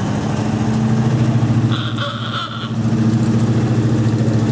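Old vehicle engine running steadily at low speed as it drives slowly past, with a brief high-pitched tone about two seconds in.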